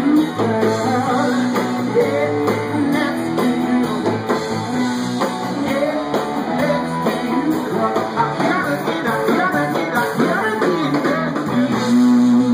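A live rock band playing an instrumental passage led by guitar, with bending, wavering lead lines over sustained bass and chords.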